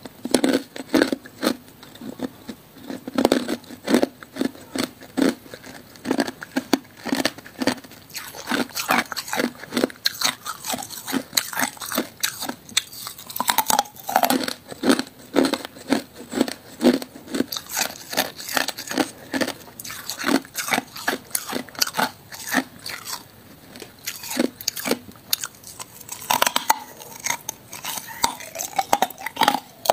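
A person biting and chewing hard clear ice from a long ice stick: a dense, irregular run of sharp crunches and cracks as the ice breaks between the teeth.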